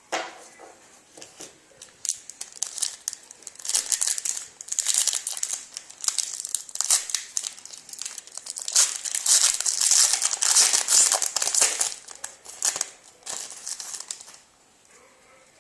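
Hockey card pack wrapper being torn open and crinkled, with irregular crackling that builds and is loudest near the middle, then stops a little before the end.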